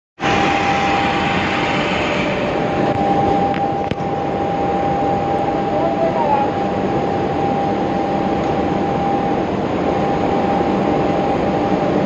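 Steady roar of an aluminium holding furnace's burner firing system at full fire, with a thin, steady high whine running through it.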